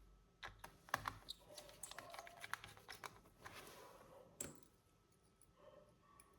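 Quick, irregular run of small plastic clicks and light taps from handling a laptop, ending about four seconds in with one sharper click.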